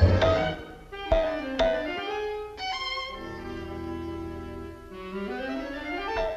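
Orchestral cartoon underscore: woodwinds and strings play a short falling phrase, then a held chord for about two seconds, then a rising run near the end.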